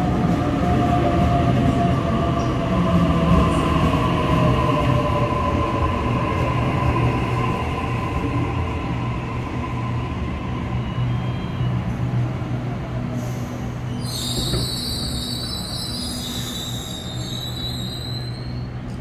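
Sydney Trains double-deck electric train braking into the platform: its motor whine falls steadily in pitch as it slows. It ends with a high brake and wheel squeal about three-quarters of the way through as it comes to a stop.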